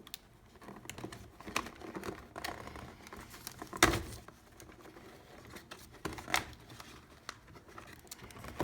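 Crinkling and rustling of packaging as a gaming headset is worked out of its box, with scattered small clicks and one sharper knock about four seconds in.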